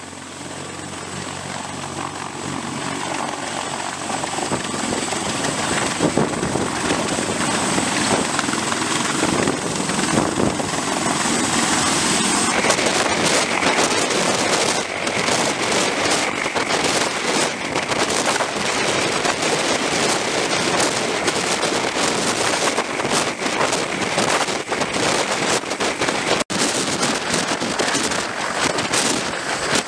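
Sikorsky CH-53E Super Stallion heavy-lift helicopter hovering low overhead, its three turbine engines and big main rotor making a loud, steady, dense noise. The noise fades in over the first few seconds, with a thin steady high whine in the first half.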